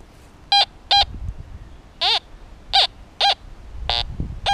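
Teknetics G2+ metal detector sounding off over a coin: about seven short electronic beeps, most at one steady mid pitch, two of them dipping and rising in pitch as the coil passes over the target.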